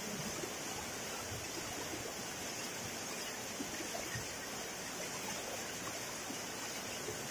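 Steady rushing and splashing of a waterfall falling into a rock pool.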